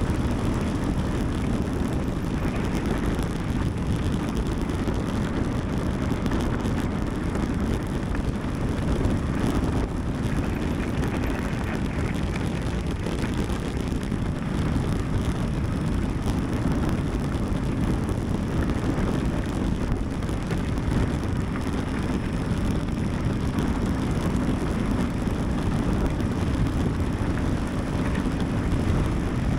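Mountain bike descending at speed: a steady rush of wind on the microphone mixed with the rumble of the tyres on the trail, heaviest in the low end and without a break.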